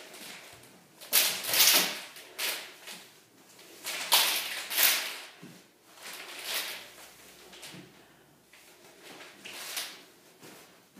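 A stack hoop of eleven hoops swung around the body: a string of whooshing swishes, irregularly spaced, the loudest about a second in and again about four seconds in, with the stacked hoops clacking against one another.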